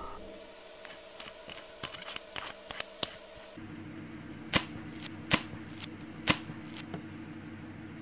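Small sharp clicks and taps of a metal 3.5 mm jack plug and a pair of pliers being handled as the plug's housing is screwed on: a quick run of light clicks in the first few seconds, then three louder, separate clicks.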